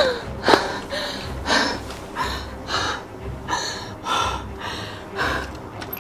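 A person panting hard and gasping for breath, quick ragged breaths about two a second.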